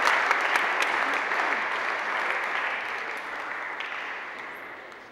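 Crowd applauding, loud at first and then dying away steadily over the last few seconds.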